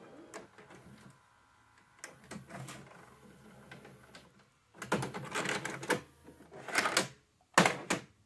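Clicks from the VHS deck's buttons and tape mechanism as a cassette is ejected, then a plastic VHS cassette handled and set on top of the player, with a run of clattering from about five seconds in and sharp knocks near the end.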